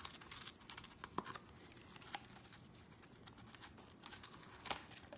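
Faint crackling and light tearing of a chewed piece of cardboard, with scattered small clicks and a couple of sharper snaps.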